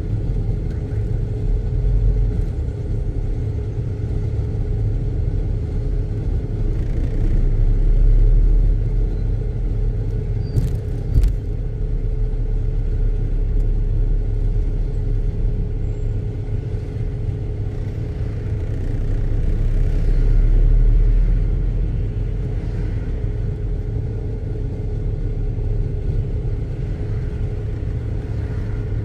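Car driving slowly in city traffic: a steady low engine and road rumble that swells louder twice, with a couple of short sharp clicks about eleven seconds in.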